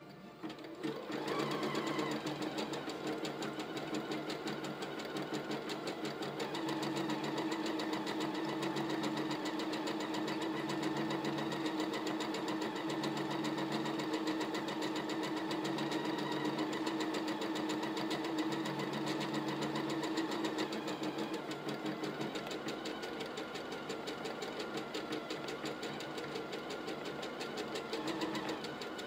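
EverSewn Hero sewing and embroidery machine stitching out an embroidery design, starting about a second in and then running steadily, with its hum shifting slightly a couple of times.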